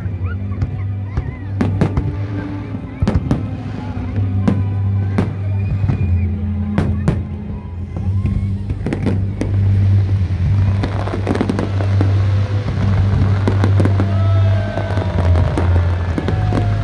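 Aerial fireworks bursting in a rapid, irregular series of sharp bangs and crackles, growing denser about halfway through, over music with a steady heavy bass.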